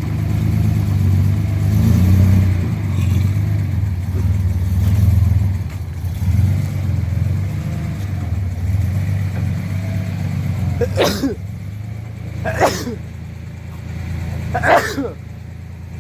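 A car engine running steadily, a little stronger and unsteady for the first few seconds, with four short sharp sounds over the last five seconds.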